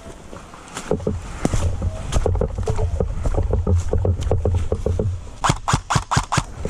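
Footsteps crunching through leaf litter and brush at a quick pace, with a low rumble of movement and handling on the body-worn camera. About a second before the end comes a quick run of about seven sharp cracks.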